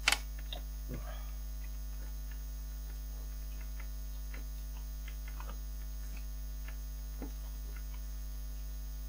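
Steady electrical mains hum, with one sharp click just after the start and faint, scattered small clicks of long-nose pliers and a screwdriver working a screw and nut.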